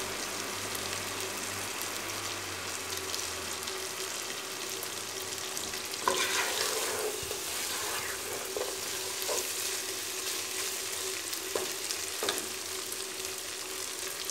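Mutton korma sizzling in ghee in a nonstick pot as it is fried down, the yogurt liquid cooked off and the ghee separating. A spoon stirs and scrapes through the meat, knocking against the pot several times in the second half.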